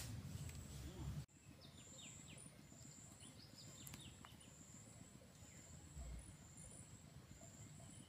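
Faint forest ambience: a high insect drone coming in repeated pulses, with a few short bird chirps in the first half. A low rumble cuts off abruptly about a second in.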